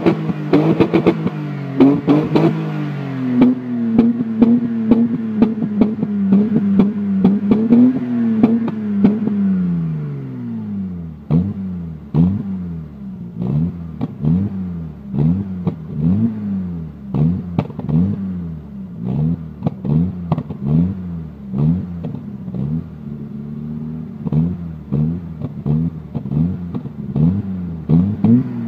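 BMW E30 320i's straight-six engine through a Supersport aftermarket exhaust, revved while standing. It is held at raised revs for several seconds and drops back to idle about ten seconds in, then comes a long run of quick throttle blips, about three every two seconds. Sharp cracks are heard throughout.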